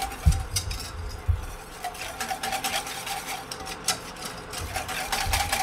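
Wire balloon whisk beating flour into warming evaporated milk in a stainless steel saucepan, its wires clicking and scraping against the pan in a quick, irregular patter.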